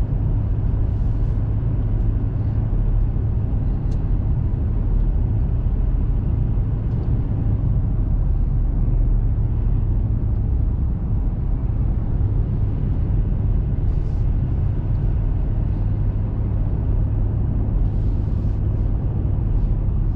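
Steady road and engine rumble of a diesel four-wheel-drive vehicle climbing a mountain road at an even pace.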